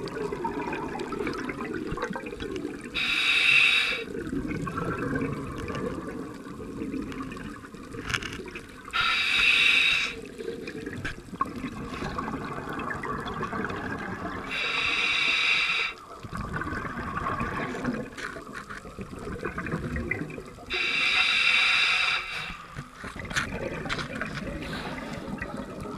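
Scuba diver breathing through a regulator, heard underwater: a loud hissing rush about every six seconds, four times, with bubbling and rumbling between breaths.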